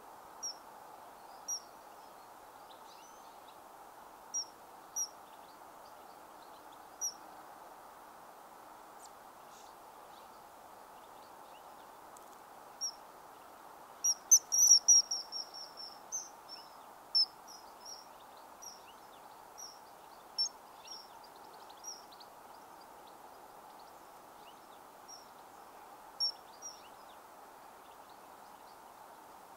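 Common kingfishers giving short, shrill, high-pitched calls, single calls every second or two, with a rapid run of calls about halfway through that is the loudest part. A steady background hiss runs underneath.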